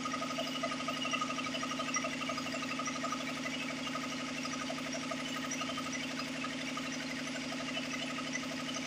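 5 hp piston air compressor running steadily, a continuous hum with a fast, even mechanical chatter from the pump.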